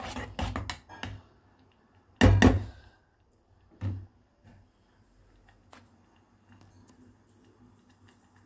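Spoon clattering against the side of an enamel pot while custard is stirred, then a loud thunk about two seconds in and a softer knock a second and a half later.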